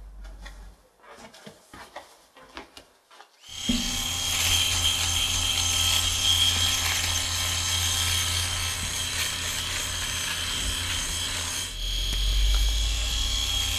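Electric razor buzzing steadily as it shaves a man's face, switching on suddenly about three and a half seconds in after a few faint rustles. Its sound turns deeper and heavier near the end.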